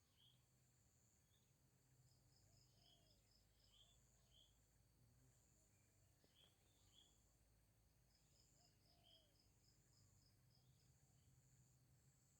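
Faint tropical forest ambience. Insects keep up a steady high buzz while birds give scattered short chirps, twice including a quick run of about eight notes.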